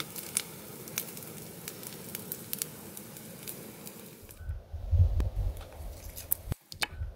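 Wood fire crackling with frequent sharp pops. About four seconds in it changes to a low rumble with scattered snaps and crackles as dry pine needles and twigs catch light.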